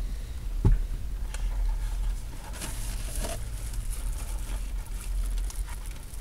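Cardboard takeout box being handled inside a car: scattered rustles and light knocks, with one louder bump about two thirds of a second in, over a low steady rumble.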